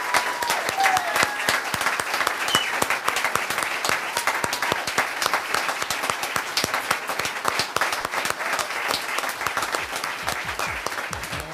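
Audience applauding: dense, steady clapping from a roomful of people that eases slightly near the end.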